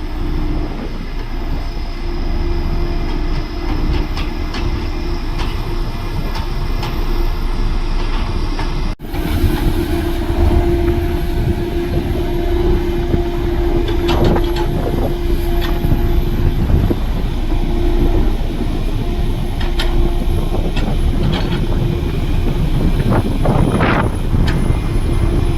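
Heavy construction machinery running steadily under load, a constant engine drone with scattered metallic clanks and squeaks. The sound breaks off abruptly about nine seconds in and resumes.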